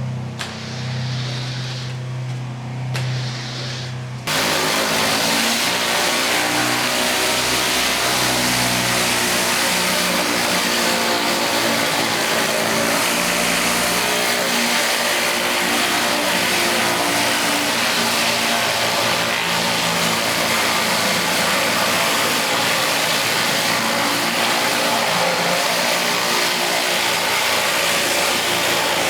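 Gas pressure washer engine running steadily. About four seconds in, a loud, steady rush of high-pressure water spraying cuts in suddenly over the engine and holds.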